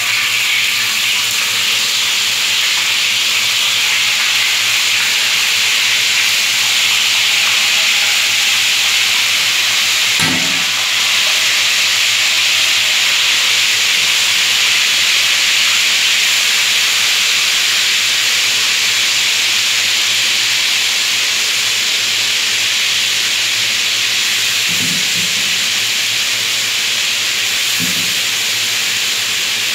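Marinated pork pieces frying in hot oil in a wok, a loud steady sizzle. A few short knocks stand out, about ten seconds in and twice near the end.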